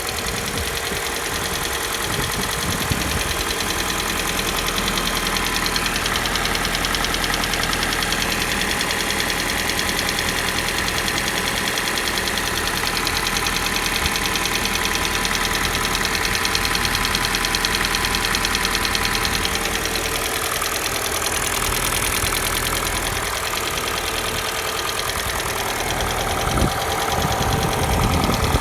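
Kia Soul's G4NA 2.0-litre four-cylinder petrol engine idling cold with a fast, steady knock, a cold-engine knock. A few louder thumps come near the end.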